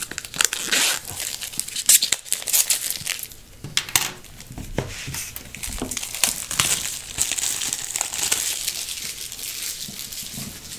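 A small cardboard product box and its wrapping being torn open by hand: a dense run of crinkling, crackling and sharp ripping, with a steadier rustle in the second half.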